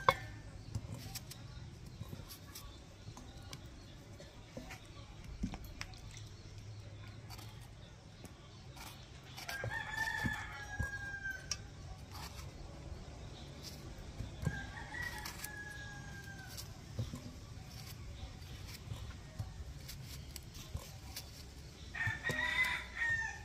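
A rooster crowing three times, each crow a long call falling slightly in pitch: about ten seconds in, again around fifteen seconds, and near the end.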